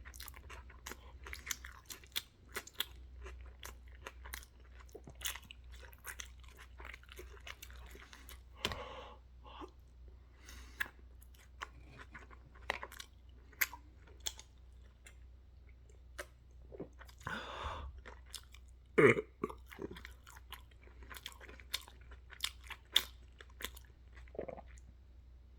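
A person chewing food loudly, close to the microphone, with many sharp wet mouth clicks throughout. There are a couple of longer noisy stretches about 9 and 17 seconds in.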